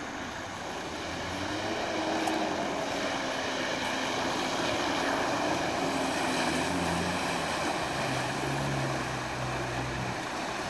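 Off-road 4x4 engines running while a vehicle drives through a river, pushing a wave of water, over a steady rush of flowing water. The engine note shifts up and down as it drives.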